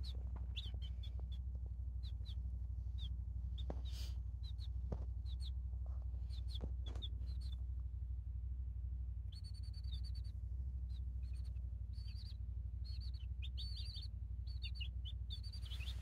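Several young meat chicks peeping, a steady stream of short, high cheeps, some falling in pitch, over a steady low hum.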